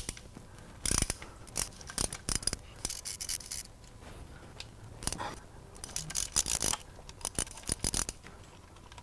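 Ratchet wrench clicking in several short runs as the bolts holding the oil pickup are turned out, with small metal-on-metal clinks between.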